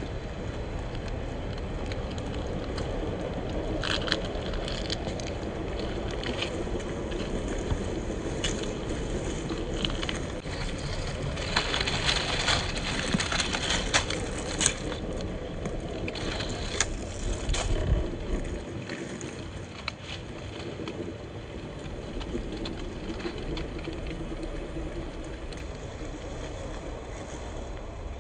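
1/10-scale RC rock crawler (Axial SCX10 II with an 80-turn motor) driving over the forest floor: a steady running noise with many sharp clicks and crackles as the tyres roll over twigs and debris, busiest from about four to eighteen seconds in.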